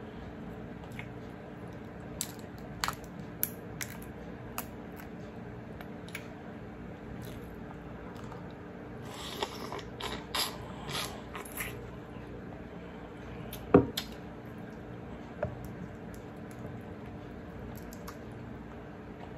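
Eating and shell-picking sounds from Alaskan king crab: scattered sharp clicks and crackles of crab shell being handled and snapped, a run of wet slurping and chewing near the middle as crab meat is bitten off, and one loud shell crack a little past two-thirds through, over a steady low hum.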